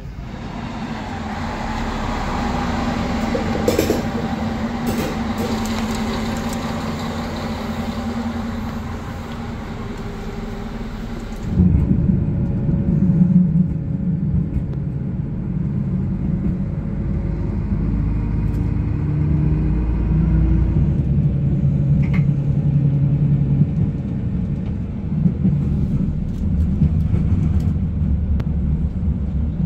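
A single-car Stadler diesel railcar running on the rails: a steady rumble of engine and wheels with some held tones. About eleven seconds in the sound changes abruptly to a deeper, duller rumble with low engine tones.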